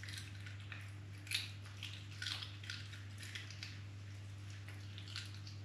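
Domestic cat biting and chewing on a dead mouse: irregular small wet crunches and crackles, one sharper crunch about a second in and a quick cluster about two seconds in, over a steady low electrical hum.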